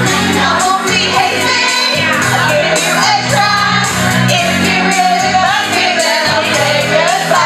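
Group of women singing loudly together into microphones over a karaoke backing track with a steady beat.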